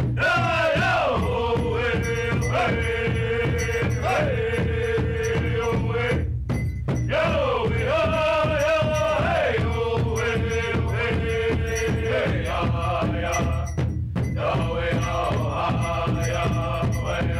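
Native American powwow drum group: several drummers striking a large hide-headed drum in a steady beat while singers chant over it, each phrase starting high, falling, and settling on a long held note.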